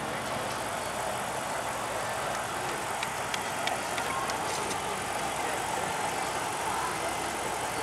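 A car engine idling steadily in the background among outdoor car-show noise.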